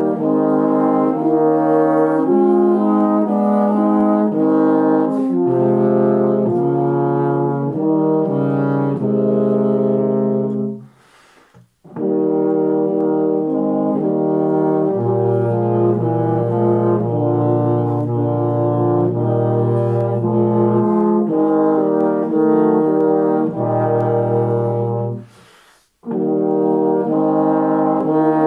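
Brass trio of tenor horns and baritone playing a piece in three-part harmony. Each part moves in held notes over a low bass line. The playing breaks off briefly twice, at phrase ends about eleven seconds and twenty-five seconds in.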